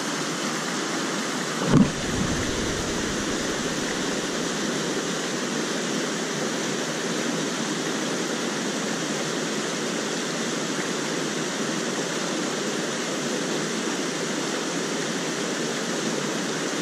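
Steady rush of a mountain stream running over rocks and a small cascade, with a brief thump about two seconds in.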